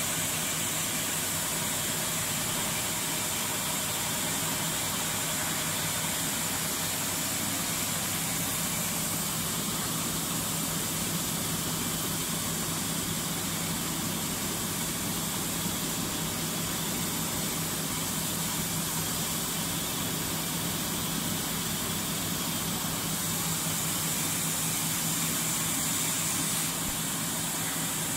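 Plastic extrusion line for lollipop sticks running: a steady low machine hum under a constant high hiss.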